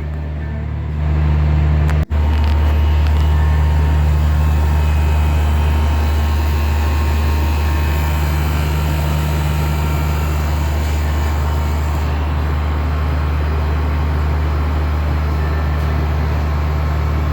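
Window-type air conditioner running on test after its repair: a loud, steady hum of the compressor and fan motor. It steps up in level about a second in, with a brief dropout about two seconds in.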